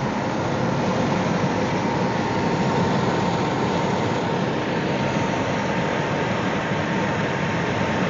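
Steady road and wind noise inside a moving car, with a faint steady whine.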